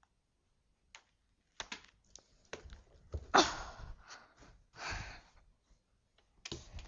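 Handling of a rubber-band-firing paper toy rifle: scattered light clicks and rustles of paper, with a louder rushing burst about three and a half seconds in and a softer one about five seconds in.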